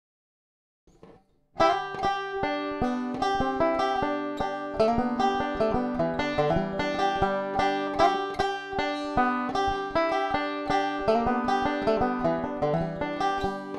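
Resonator banjo picked with Gold Tone finger picks, a steady stream of quick, bright plucked notes starting about a second and a half in. It is heard through a Pickup the World piezo pickup blended with a Behringer SL-75C microphone.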